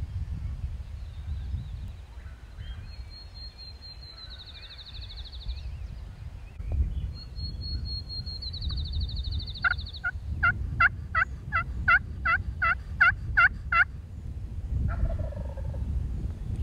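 Wind rumbling on the microphone. A small songbird twice sings a thin whistled song that speeds into a trill. Then about ten seconds in comes the loudest sound: a run of about a dozen turkey yelps, roughly three a second, followed by a short lower call.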